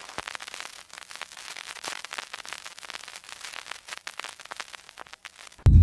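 Crackling static: a steady hiss crowded with irregular clicks and pops. Loud music with a deep bass starts suddenly near the end.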